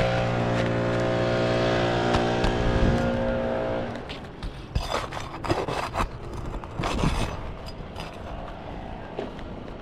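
A motor's steady hum that cuts off about four seconds in, followed by scattered light scrapes and clicks of work on roof shingles.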